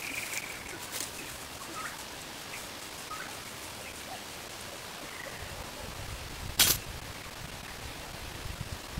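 Open-air rural ambience with faint, scattered short chirps. About six and a half seconds in there is one sharp click or knock, the loudest sound, with a low rumble around it.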